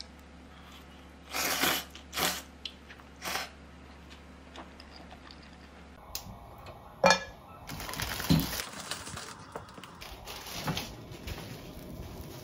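Noodles slurped from a bowl of soup: three short slurps in the first few seconds. After about six seconds comes kitchen handling at a gas stove: a sharp click, then light clattering.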